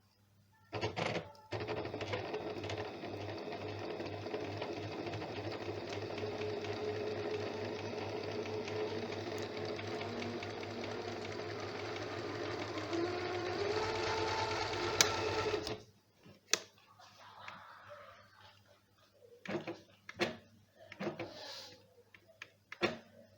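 Janome zigzag sewing machine, freshly cleaned and oiled, running with a fast, even stitching rattle. It starts with a brief spurt about a second in, runs steadily for about fourteen seconds, speeds up near the end, then stops abruptly, followed by a few clicks and knocks.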